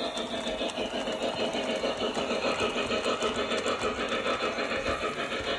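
Lionel O-gauge Union Pacific Big Boy model steam locomotive running past, giving a rapid, even chuffing of about four beats a second with light clicking from the wheels on the track.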